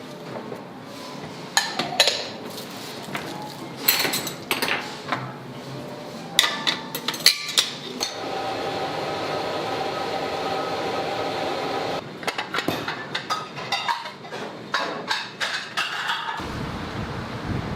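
Kitchen work clatter: sharp knocks and clinks of dishes, pans and utensils being handled, with a steady whirring noise for a few seconds in the middle.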